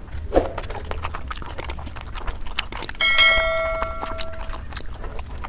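Close-miked eating of steamed momo dumplings: wet mouth clicks and chewing sounds. About three seconds in, a bell-like notification ding sound effect rings and fades over about a second and a half.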